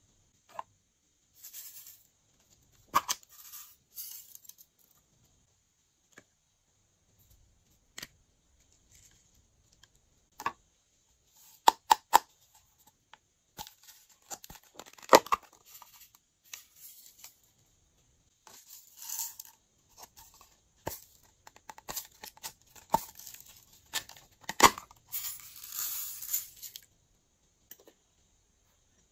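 Small plastic containers handled with sharp clicks, and sequins, glitter and beads poured and shaken out of them onto a glass dish in short rattling, hissy bursts with quiet gaps between; the longest burst comes near the end.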